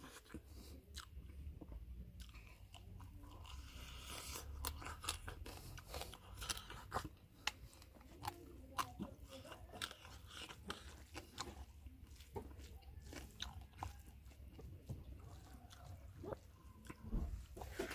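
A person chewing and biting food close to the microphone, with many irregular sharp crunches.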